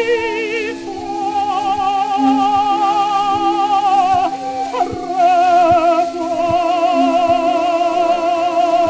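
Mezzo-soprano singing a French operatic aria, holding long notes with a wide vibrato over instrumental accompaniment, from a 1907 acoustic gramophone disc. Record surface noise comes through, with a click about every three-quarters of a second.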